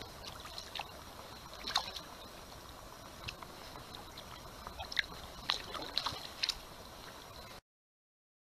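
Kayak paddle working calm water: scattered drips and small splashes over a faint steady hiss, busiest in the second half. The sound cuts off abruptly near the end.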